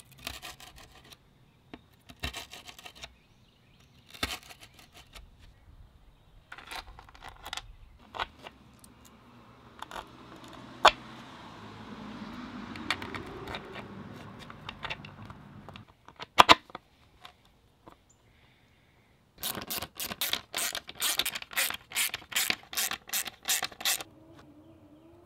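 Hand tools working on skateboard hardware: a screwdriver pushed and scraped through grip tape over the bolt holes, and metal mounting bolts knocking and scraping into the wooden deck in separate strokes. Near the end comes a fast run of sharp clicks, about four or five a second, lasting several seconds.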